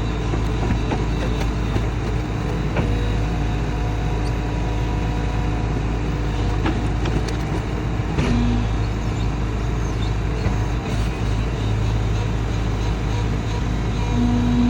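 Sany SY140C-9S excavator's diesel engine running steadily while it works, with a few sharp knocks. A brief steady tone comes in about eight seconds in and again near the end.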